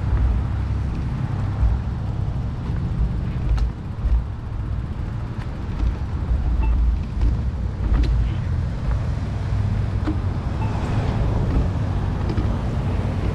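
Road traffic passing, mixed with a low wind rumble on a microphone riding along on a moving bicycle, and a couple of light clicks.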